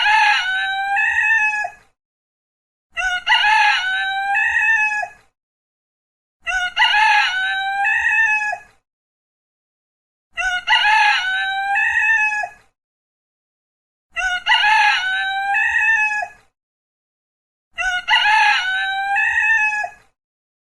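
Rooster crowing six times, about every three and a half seconds, each a short opening note followed by a long drawn-out call that drops at the end. The crows look alike and have complete silence between them.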